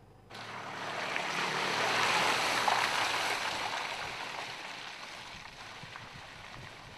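Tyres of a Mercedes GLK SUV rolling slowly downhill over mud and stones, a rushing noise that starts suddenly, swells over the first two seconds and then slowly fades.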